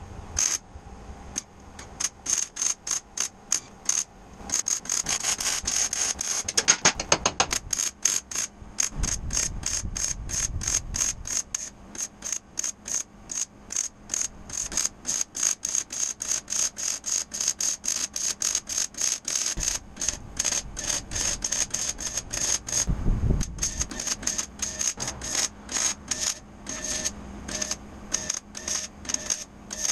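MIG welding: the arc of a Miller Millermatic wire-feed welder crackling and sputtering in quick, short pulses as steel framing is welded, with brief pauses between beads.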